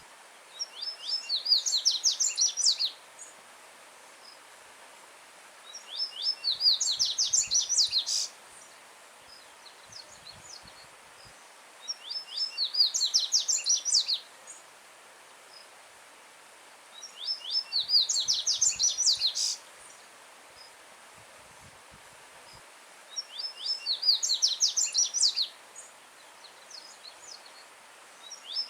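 Yellow-bellied seedeater (coleiro-baiano) singing loud, high-pitched songs of rapid notes, each about two seconds long, five times at intervals of about five seconds, with another starting at the very end. A stream rushes faintly and steadily behind it.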